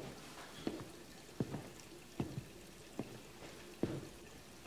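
Footsteps of a person walking at an even pace, a short faint click about every three-quarters of a second.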